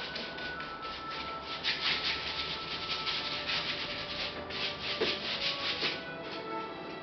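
Paint being rubbed and scrubbed onto a large canvas by hand in quick repeated strokes, a dry rasping rub several times a second.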